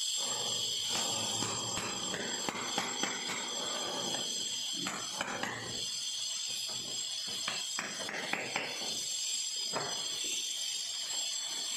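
Hammer striking a chisel and an axe blade wedged under the edges of granite floor tiles, irregular light metal-on-metal knocks with some scraping, as the tiles are loosened from their mortar bed so they come up unbroken.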